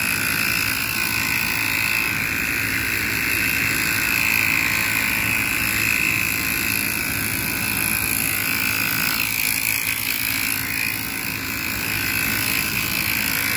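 Air-pressurised garden pump sprayer with a foam nozzle hissing steadily as it sprays soapy foam.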